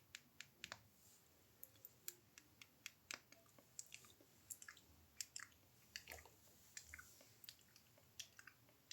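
ASMR mouth sounds: wet tongue and lip clicks and smacks, about three a second at uneven spacing.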